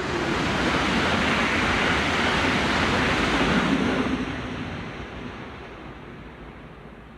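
Train passing close by at speed: a rushing roar of wheels and air that rises sharply, holds for about four seconds, then fades away.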